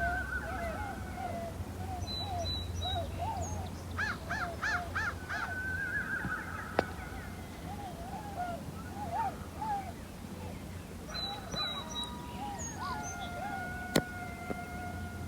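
Coyotes yipping and howling: many short wavering yips with a quick run of them about four seconds in, and long held howls near the end.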